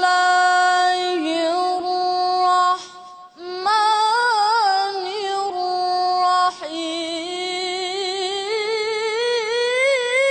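A boy's high voice reciting the Quran in a melodic, chanted style into a microphone, holding long notes with wavering ornaments. It breaks off briefly for a breath a little over three seconds in, and the line climbs slowly in pitch toward the end.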